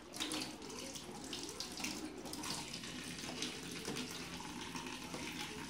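Kitchen tap running into a stainless steel sink, a steady rush of water with small irregular splashes as sausages are rinsed under the stream by hand.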